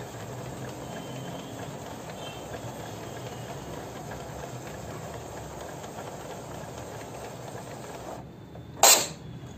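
Epson L380 inkjet printer's internal mechanism running with a steady mechanical noise that stops shortly before the end, followed by one loud, sharp click.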